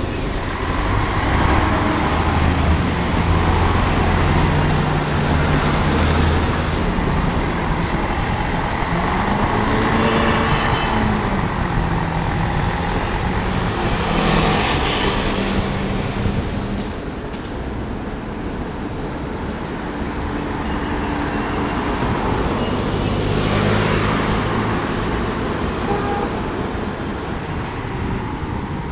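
Large city buses, among them an articulated rapid-transit bus, driving in street traffic: diesel engines running low and steady, one engine revving up and back down about a third of the way in. Louder noisy swells of passing vehicles come about halfway and near the end.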